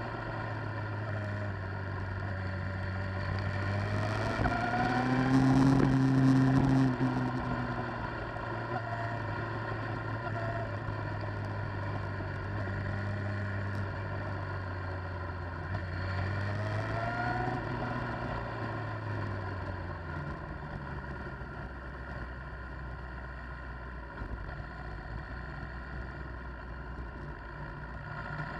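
Motorcycle engine running on the move, heard from the bike. The revs climb in short rising pulls a few times, and the sound is loudest around six seconds in. After about twenty seconds it settles to a lower, steadier drone.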